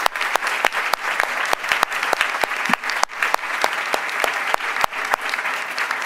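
Audience applauding: dense, steady clapping from many hands, with the panel at the head table clapping too.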